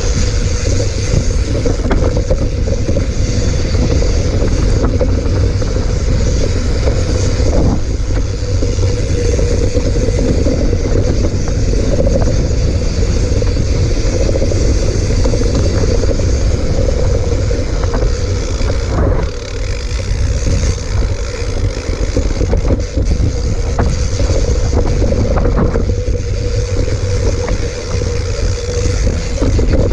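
Wind buffeting the microphone while a mountain bike rattles over rough trail, with a few sharper knocks from bumps.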